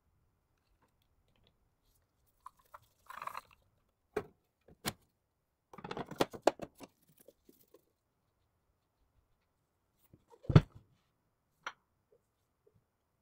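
Handling sounds from assembling a PC case: scattered clicks and light knocks, a brief rustle, and a quick run of clicks about halfway through as a lower case panel is fitted into place. Near the end comes one much louder thump.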